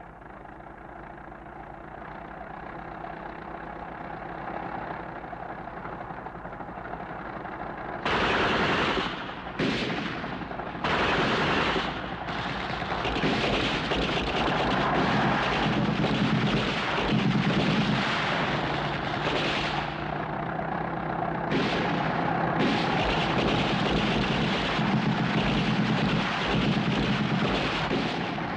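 A low motor hum slowly growing louder. About eight seconds in, heavy gunfire suddenly breaks out: sharp bursts and stops at first, then sustained machine-gun and rifle fire.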